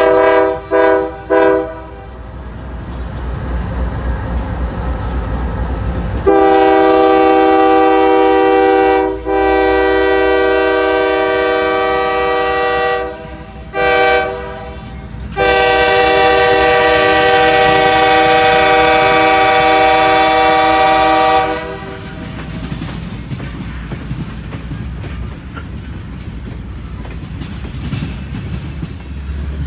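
Diesel freight locomotive's multi-note air horn blowing three short blasts, then the grade-crossing signal: two long blasts, a short one and a final long one. After the horn stops, the freight cars roll past with a steady low wheel rumble and clickety-clack.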